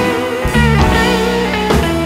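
Background rock music led by guitar.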